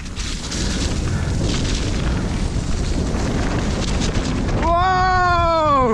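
Wind buffeting the microphone and the low rumble of a mountain bike riding fast down a wet, muddy trail. Near the end a rider lets out one long shout of "Whoa!" that falls in pitch.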